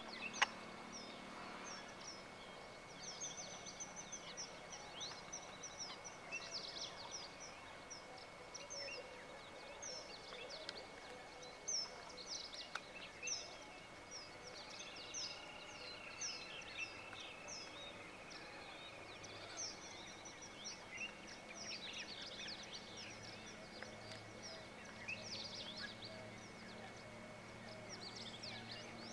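Small birds chirping: many short, high calls scattered all through, with a few louder ones, over a steady faint high-pitched tone.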